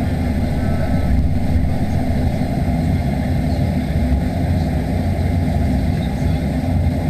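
Steady low rumble inside the cabin of a Boeing 737-800, from its CFM56-7B engines running at low power with the aircraft on the ground during taxi.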